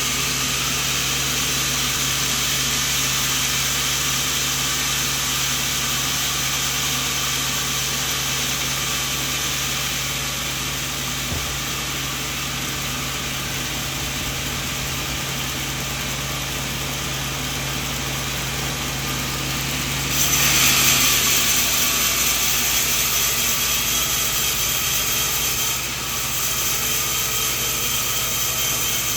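Band sawmill running and sawing coconut wood: a steady machine hum with a continuous hiss. About twenty seconds in, the sound grows louder and brighter for about six seconds, then settles back.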